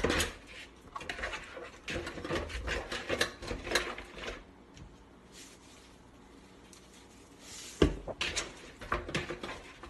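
Scattered clicks, knocks and rubbing as walleye pieces are handled in a plastic bowl in a stainless steel kitchen sink, quieter in the middle, with one sharp knock about eight seconds in.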